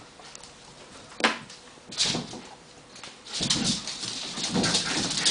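Crisp packet crinkling and rustling as mini schnauzer puppies pull at it, with small dog whimpers. There is a sharp tap about a second in, and the crinkling turns louder and busier after about three seconds.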